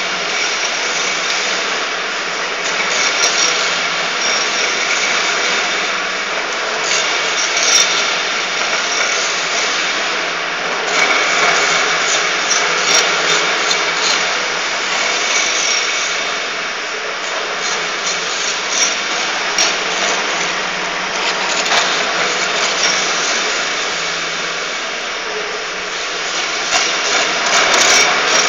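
Şen-Mak HS 5000 light floor grinder running steadily, its abrasive heads sanding down an epoxy floor coating ahead of the final coat. A dense grinding hiss with a faint steady whine, broken by occasional sharp ticks.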